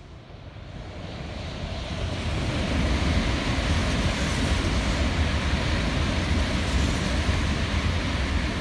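N700A Tokaido Shinkansen sixteen-car train passing through a station at full speed without slowing: a rushing noise of wheels on rail and air that builds over the first two to three seconds and then holds steady and loud as the cars go by.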